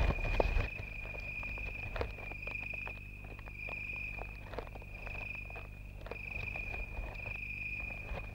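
A mole cricket digs through loose earth: soil crackles and scratches in many small clicks, densest and loudest in the first second. Over it runs a steady high insect trill.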